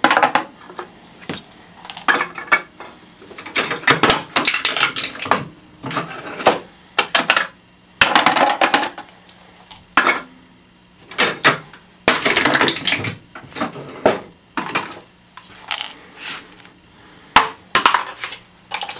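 Aluminium drink cans being crushed in a wall-mounted lever can crusher for 16-ounce cans: a run of irregular metallic crunches and clanks through the whole stretch.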